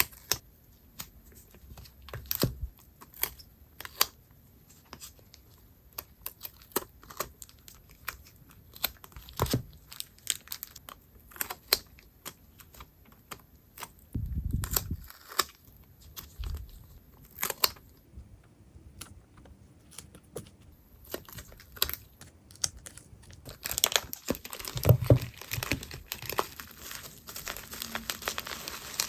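Hands packing small acrylic goods: plastic packaging crinkling and tearing among scattered light clicks and taps, with denser crinkling in the last few seconds.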